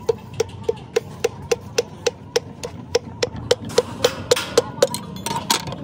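Wooden handle tapping the crown of a piston in quick, even knocks, about three or four a second, driving the ringed piston through a ring compressor into the cylinder bore of a Massey tractor engine block. A brief, louder noise comes near the end.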